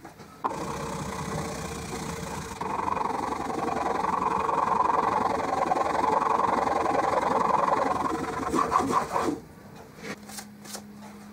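A chisel in a roller honing guide is pushed back and forth on an MDF strop charged with green polishing compound: steady, dense rubbing and rolling for about nine seconds as the bevel is given its final polish. It stops abruptly, followed by a few light clicks as the guide is lifted and handled.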